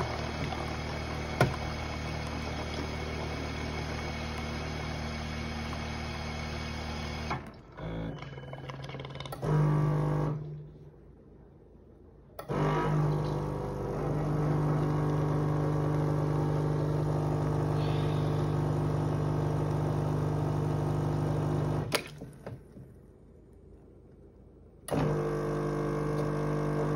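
Schaerer Coffee Club automatic coffee machine working through a latte. Its pump and motor hum steadily while hot milk dispenses, stop, and start again twice after pauses of a few seconds as the machine goes on to the coffee.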